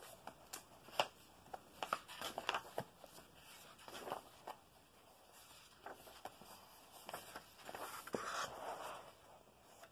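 Pages of a paperback colouring book being turned one after another: faint paper rustles and soft flaps, with light clicks of fingers on the paper, several times a few seconds apart.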